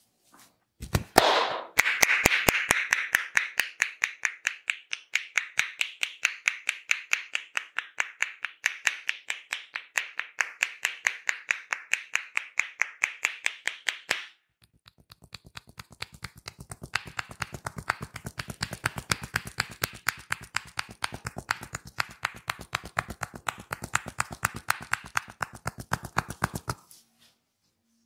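Barber's hands tapping rapidly on a man's head in an Indian head massage: a long run of crisp, even strikes several a second, then after a brief pause a second run with a duller thud, the palms pressed together for the chopping taps, stopping shortly before the end.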